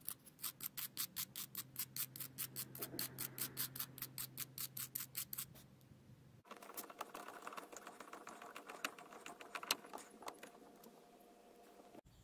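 Small wire brush scrubbed rapidly back and forth, about five strokes a second, for roughly five seconds. After a break, a run of irregular light clicks and scratching follows.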